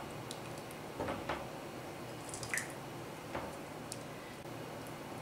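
Thick bulgur soup being ladled from a pot into a serving bowl: soft wet pours and drips, with a few light clicks of the ladle.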